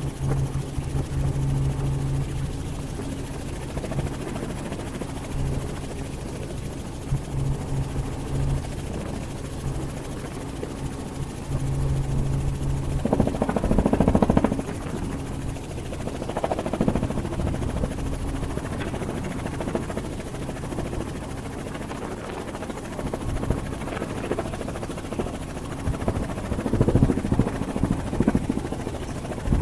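Helicopter in flight heard from aboard: a steady low drone of rotor and engine, with louder rushing gusts about halfway through and again near the end.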